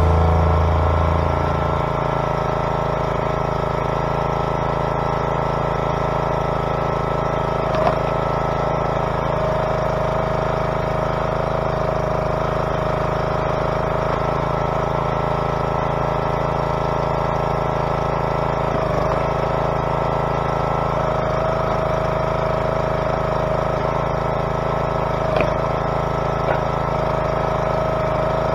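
Log splitter's small gas engine running steadily at constant speed, dipping briefly in pitch three times, each time with a light knock.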